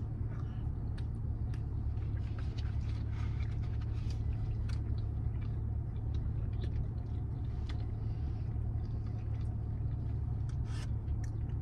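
A person chewing a mouthful of sushi roll, with soft scattered mouth clicks, over the steady low hum of an idling car heard from inside the cabin.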